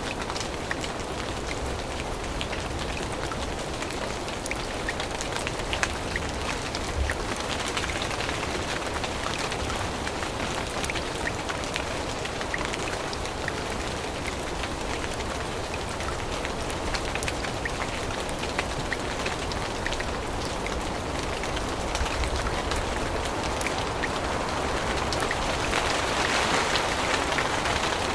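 Steady rain falling in a forest, with many single drops tapping close by. It grows a little louder near the end.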